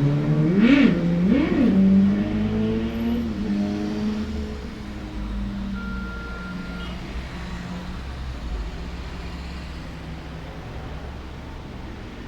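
A motor vehicle engine picking up speed, its pitch rising, with two quick revs about a second in. It then runs at a steady pitch and fades as it moves away.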